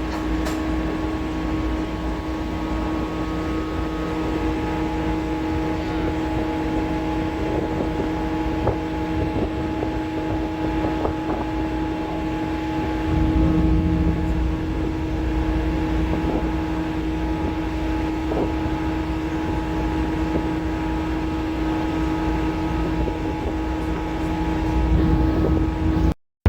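A ferry's engines running with a steady drone and hum, heard on board, under a low rumble that grows a little louder about halfway through.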